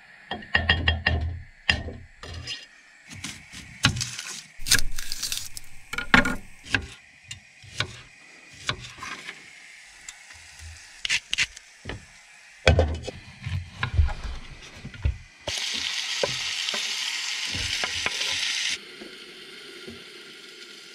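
Kitchen knife tapping and scraping as it stirs food sizzling in a clay tajine base and chops onions on a wooden board, many short clicks and knocks. Late on a loud steady sizzle holds for about three seconds, then drops to a quieter steady hiss.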